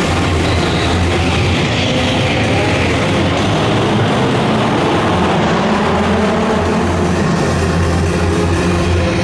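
Several racing cars' engines running hard as they lap a track, mixed with loud music over a PA system. The sound is a dense, steady din with a strong low rumble.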